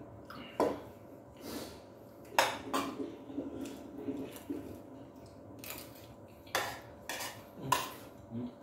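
Cutlery and dishes clinking during a meal: a fork and spoon tapping and scraping on plates and bowls, with several sharp clinks spaced irregularly.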